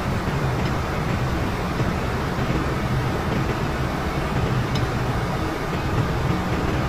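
Steady, loud drone of running ship's machinery with a low hum that does not change.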